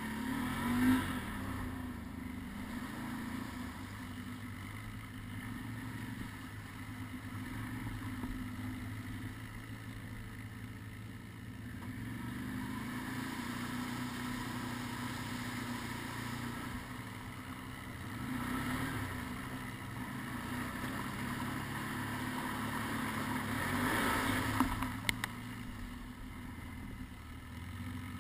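Can-Am Outlander ATV engine running steadily while riding, rising in level as the throttle opens around two-thirds of the way through and again near the end. A couple of sharp knocks come near the end.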